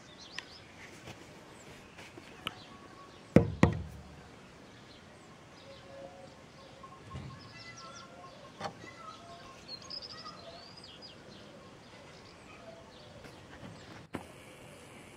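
Small birds chirping in short, scattered calls over faint background noise, with two loud knocks close together about three and a half seconds in and a fainter knock near nine seconds. The background breaks off suddenly near the end.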